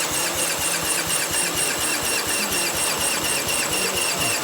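Small single-cylinder engine of a vintage Gravely-type walk-behind tractor running steadily with an even, rhythmic beat, just restarted after being refuelled.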